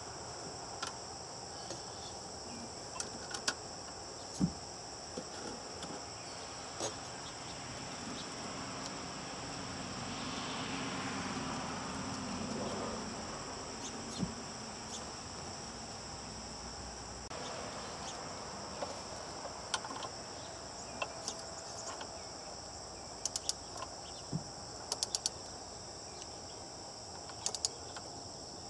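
A steady, high-pitched insect chorus, with scattered light clicks and taps from hands fitting a wiring connector and handling the engine wiring harness. There is a faint swell of rushing noise around ten seconds in.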